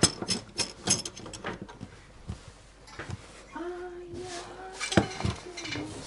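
Clinks and clatters of hard objects being handled, a quick run of them in the first second and a half and a sharp single knock about five seconds in.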